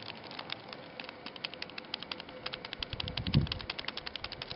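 Small foil catalyst packet being shaken and tapped over a plastic mixing jar as aluminum powder is poured in: rapid, irregular light crinkly clicks, with a single low thump a little over three seconds in.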